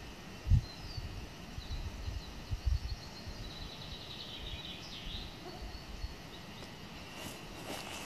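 Small songbirds singing in the forest canopy, scattered chirps with a fast trill about halfway through, over low thumps in the first few seconds. Near the end faint footsteps on the forest floor begin.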